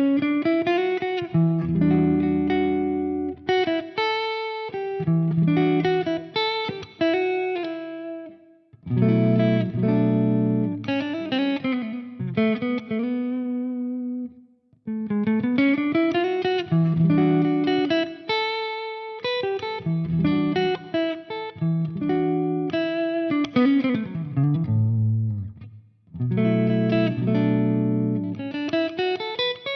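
Epiphone 1959 ES-355 semi-hollow-body electric guitar played in phrases of picked notes and chords with string bends, pausing briefly about 9, 15 and 26 seconds in.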